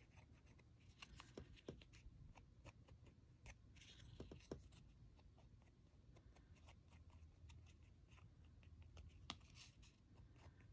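Near silence with faint scattered taps and two brief soft rubbing sounds, about four seconds in and near the end: a fingertip working gilding wax onto embossed cardstock.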